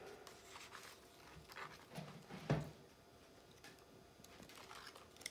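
Small laminated picture cards and a paper file folder being handled: faint rustling and small clicks, with one soft thump about two and a half seconds in.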